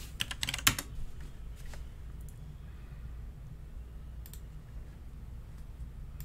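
Computer keyboard keystrokes: a quick cluster of clicks in the first second, then a few sparse single clicks, over a steady low hum.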